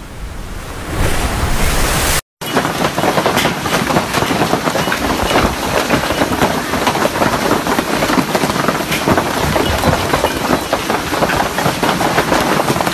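Heavy hailstorm: a rushing noise that grows louder for about two seconds, then after a brief break a dense, steady clatter of hailstones pelting the ground and surfaces.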